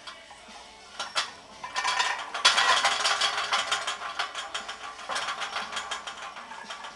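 Loaded barbell with steel plates rattling and clanking in the rack: a few separate clanks, then a dense run of fast metallic clicks from about two and a half seconds in that thins out toward the end, as the 315 lb bar is unracked and settled.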